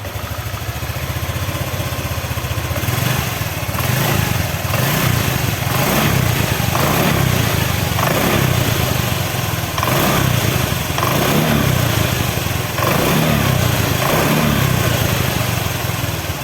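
Old Honda Vario 125 scooter's liquid-cooled single-cylinder engine running on a test start after a head gasket replacement, revved again and again so its pitch rises and falls. The leaking gasket had let compression push the coolant out; the engine now runs without the radiator water spurting.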